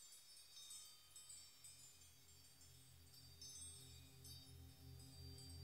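Faint background music of tinkling wind chimes, in clusters about every second, over a low pulsing bass tone.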